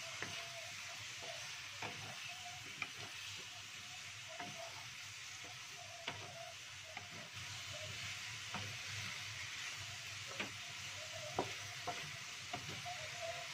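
Vegetables and meatballs sizzling in oil in a wok while a wooden spatula stirs them, knocking and scraping against the pan at irregular intervals. They are being stir-fried until half-cooked.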